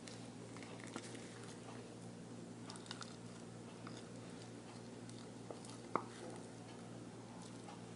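Faint handling noises over a steady low hum: scattered small clicks and soft crackles, with one sharp click about six seconds in.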